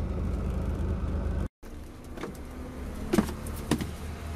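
Coach bus's diesel engine running with a steady low hum, cut off abruptly about a second and a half in. A quieter stretch follows, broken by a few sharp knocks.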